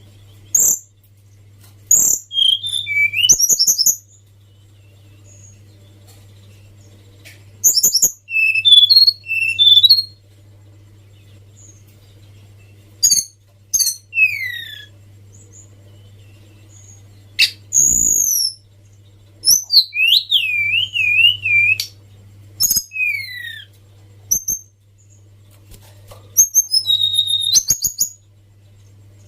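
Tledekan songbird singing in separate phrases of high whistled notes, downward slurs and fast trills, with pauses of a few seconds between phrases, over a steady low hum.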